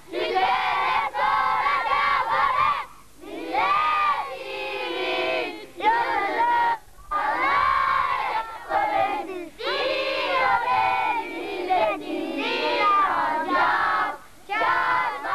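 A group of children singing together in unison, phrase after phrase with short breaks between.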